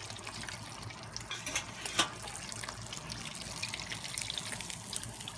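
Battered largemouth bass fillets deep-frying in hot peanut oil: a steady sizzle with scattered pops and crackles.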